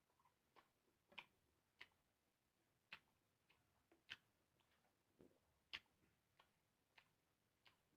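Faint, irregular clicks and smacks of someone chewing food during a mukbang, about one every half second to second.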